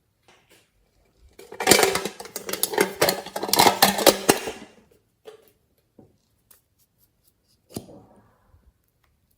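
Slime being mixed by hand, giving a dense run of sticky crackles and pops for about three seconds, then a few scattered pops and one short crackle near the end.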